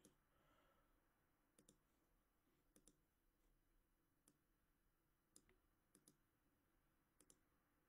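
Near silence with faint, sparse computer clicks, about six of them, four in close pairs like double-clicks, as text is selected and pasted in a code editor.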